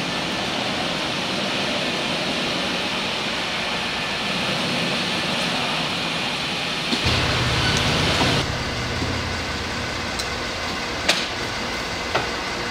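Steady machine noise with a lot of hiss. A low hum joins about seven seconds in, the hiss drops about a second later, and a few light clicks follow near the end.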